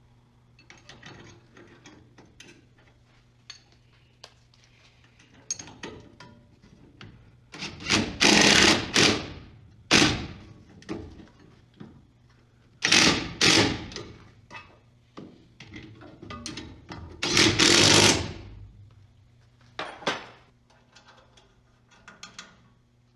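Four short bursts of a power tool, each under about a second, separated by clinks and knocks of metal tools and parts, over a faint steady hum.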